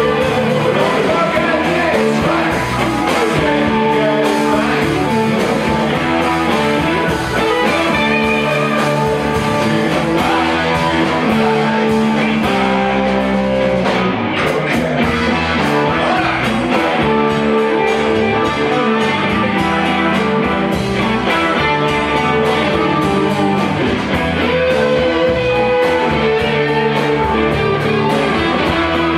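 Live rock band playing: several electric guitars over a drum kit, at a steady loud level.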